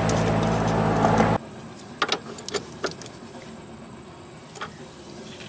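A machine running steadily at a fixed pitch, which cuts off suddenly about a second and a half in. After that come a few light clicks.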